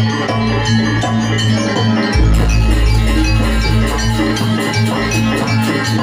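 Janger gamelan music: bronze metallophones ringing out struck melodic patterns over drums, with a deep low tone that swells and fades.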